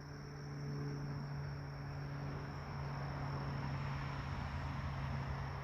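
Crickets trilling steadily in the night, over a low steady hum and a rushing noise that grows slightly louder after the first second.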